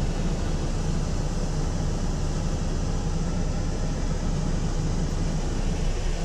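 MAN TGS truck's diesel engine idling steadily at about 750 rpm, heard inside the cab as a low hum, with the air-conditioning blower blowing on a high setting.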